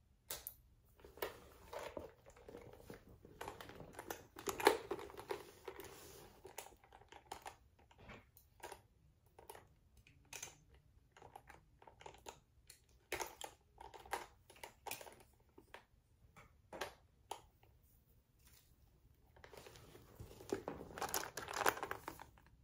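Hands handling a new shoulder bag and pulling out its paper stuffing: bursts of rustling and crinkling with many sharp clicks and taps, busiest over the first several seconds and again near the end.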